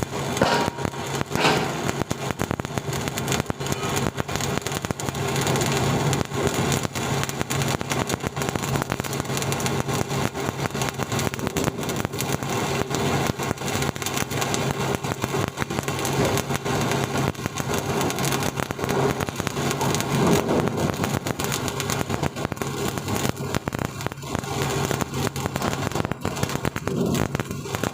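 Electric arc welding on steel: the arc crackles and sputters steadily, with a low electrical hum beneath it.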